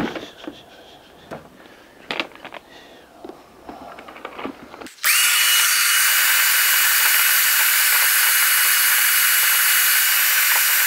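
A few light knocks and rustles, then a wet-and-dry shop vacuum switches on about halfway through. It runs loud and steady with a high whine, its hose held in the springs of a bench-seat base to suck out debris.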